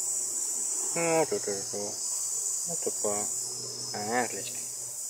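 A steady, high-pitched chorus of insects, with a voice sounding briefly a few times over it.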